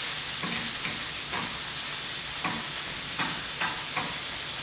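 Squash sauteing in olive oil and a salmon fillet frying in a second pan give a steady sizzle, while a spatula stirs the squash, scraping against the pan several times.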